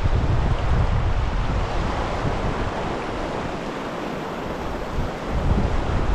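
Wind buffeting the microphone over the steady rush of a flowing creek. The buffeting eases for a second or two past the middle, then picks up again near the end.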